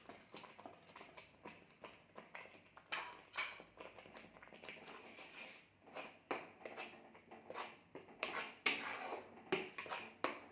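Spatula scraping and stirring in a pan in irregular strokes, working powdered spices into a frying onion-tomato masala.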